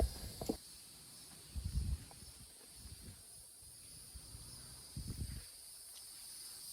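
Steady high-pitched chorus of summer insects, with a few short low rumbles of wind on the microphone near the start, about two seconds in and about five seconds in.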